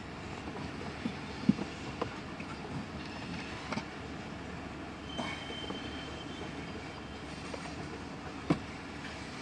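Freight train of tank cars rolling past, a steady rumble of wheels on rail broken by irregular clanks and knocks from the cars, loudest about one and a half seconds in and again near the end. A thin, brief wheel squeal comes about five seconds in.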